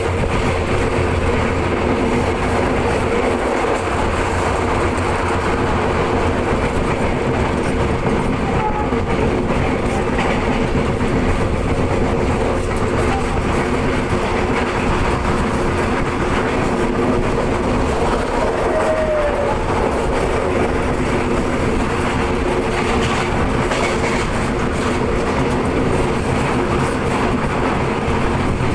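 Commuter train running along the line: a steady rumble of wheels and track with a steady low hum.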